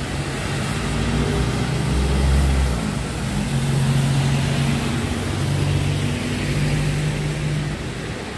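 Traffic on a rain-wet city road heard from above: the low engine hum of passing vehicles over a steady hiss of rain and wet tyres. A brief deeper rumble swells about two seconds in.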